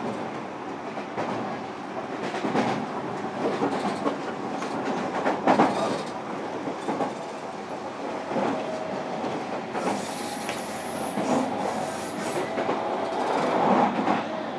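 Interior running sound of a JR Kyushu 305 series electric train, heard inside motor car MoHa 305-102: a steady rumble from wheels and rails, with the clack of wheels over rail joints every second or two.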